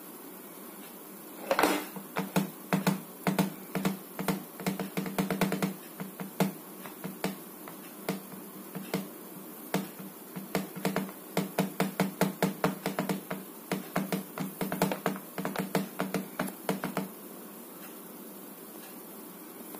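Acer laptop keyboard keys being pressed over and over, a quick run of sharp clicks, several a second. It starts about a second and a half in and stops a couple of seconds before the end.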